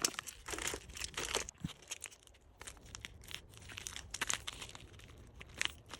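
Packaging crinkling and rustling in irregular short crackles as small items are handled and packed for an order, with a brief lull about two seconds in.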